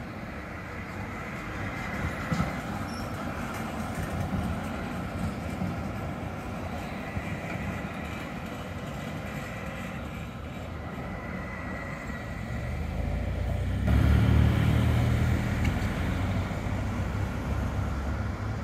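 An articulated high-floor tram rolling past on its rails, with faint wheel squeal in the first half. About 14 s in the sound changes suddenly to a louder low rumble.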